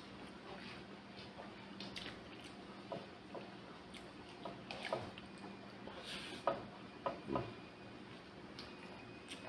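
Quiet eating by hand: soft wet chewing and mouth sounds with a scattering of small clicks and taps against the bowls, a little louder between five and seven and a half seconds in.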